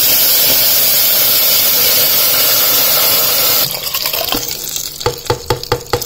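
Loud sizzling hiss as thick black-eyed pea curry is poured into a hot oil tempering of red chillies and curry leaves. The hiss drops off suddenly about three and a half seconds in, leaving the quieter sound of the curry still pouring, then a quick run of sharp knocks near the end.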